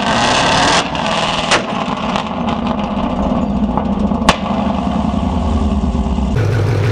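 S550 Ford Mustang's exhaust blasting hard for under a second, then the engine running on with two sharp cracks about three seconds apart. Near the end it changes to a steady engine idle.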